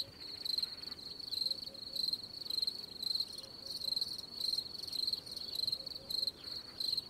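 Crickets chirping: a high, thin trill repeating about twice a second.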